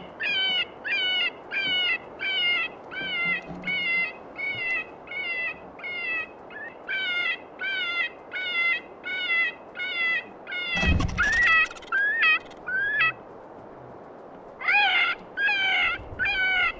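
FOXPRO electronic predator caller playing a jackrabbit distress call: a string of shrill, wavering cries, a little under two a second. A thump comes about eleven seconds in, and the cries break off for about a second before starting again.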